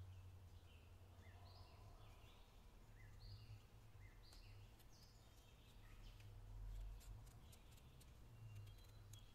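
Faint bird chirps, short rising and falling calls repeated every second or so, over a steady low hum. Near the end come a few soft ticks of a knife cutting the peel from a potato.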